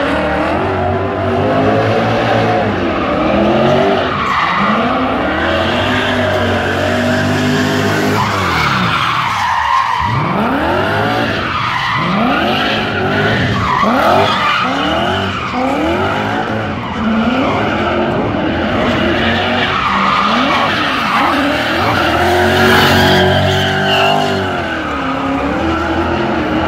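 Drift cars' engines revving hard and falling back again and again, the pitch swooping down and up several times in the middle, with tyres squealing as the cars slide.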